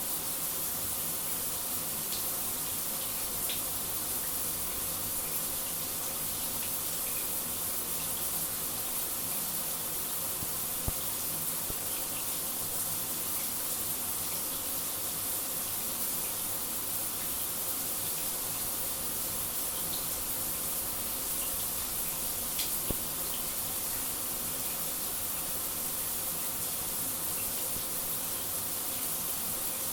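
Shower running steadily: a constant hiss of spraying water, with a couple of faint brief ticks partway through.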